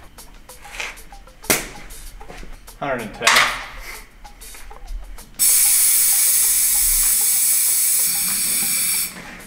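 A loud, steady rush of compressed air escaping, starting abruptly about five and a half seconds in and cutting off about three and a half seconds later, as the truck's airbag suspension is aired down. Before it there is a sharp click and a short vocal sound.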